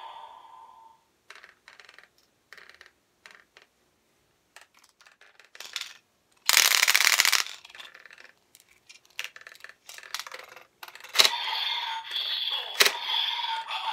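Hard plastic toy parts clicking and rattling as bottles are handled, with a loud rattle lasting about a second midway. Near the end, two sharp clicks as bottles snap into the DX Evol Driver toy belt, which then plays its electronic sound effects.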